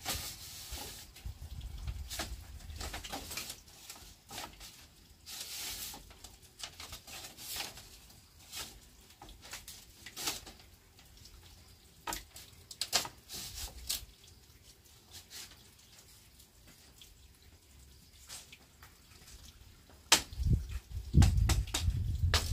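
Bamboo poles and split-bamboo slats knocking and clattering as they are handled and fitted into a coop wall: scattered light taps and clicks with a couple of brief scraping rustles early on, then a run of louder, heavier knocks and thumps near the end.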